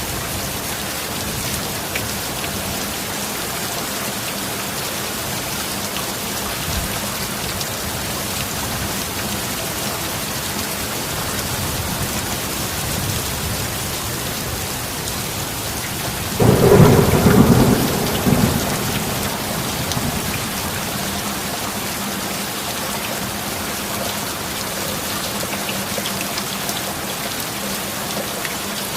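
Steady heavy rain falling, with a sudden loud clap of thunder a little past the middle that rumbles away over about two seconds.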